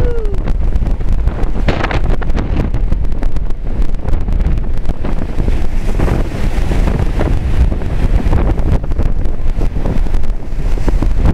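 Hurricane-force wind buffeting the microphone in loud, gusting rumbles, with storm surf washing underneath.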